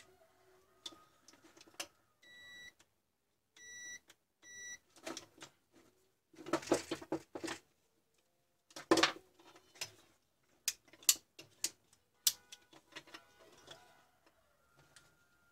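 Digital multimeter's continuity beeper sounding three times in the first five seconds, one longer beep then two short ones, as the test probes bridge closed contacts on the angle grinder's switch. Around and after the beeps come clicks and rustling from handling the probe leads and the grinder's plastic housing.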